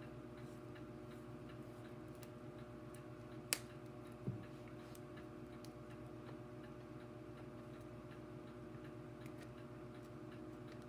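Steady electrical hum with faint, regular ticking, broken by one sharp click about three and a half seconds in and a softer knock just after it.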